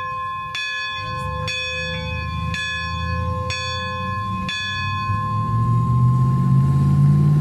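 Church bell struck about once a second, five more strokes over each other's ringing, then left to ring out. A low engine drone from a passing road vehicle grows louder and is the loudest sound near the end.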